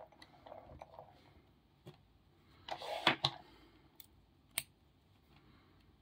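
Small metallic clicks and rattles from handling a small brass padlock and its steel lock picks: scattered light clicks, a short cluster of louder clicks about three seconds in, and one sharp click about a second and a half later.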